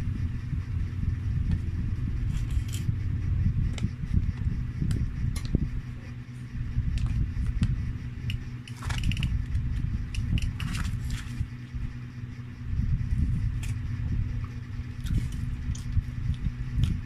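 A person chewing French fries, with scattered small clicks and a couple of short rustles about nine and eleven seconds in, over a steady low rumble.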